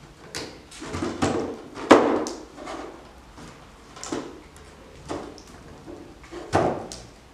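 Curved wooden slats of a laser-cut wood pendant lamp knocking and clicking as they are handled and pushed into the notches of the lamp's circular frame. About ten sharp clicks and knocks, the loudest about two seconds in and another near the end.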